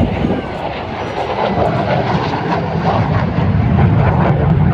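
MiG-17 jet's turbojet engine running loud as the fighter flies its display, a rough rumbling jet noise that swells a little toward the end.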